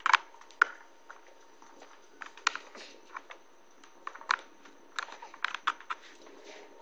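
Scattered light clicks, taps and rustles, irregularly spaced: hands fumbling a USB cable and connector at a laptop to plug in a phone, with handling noise on the camera.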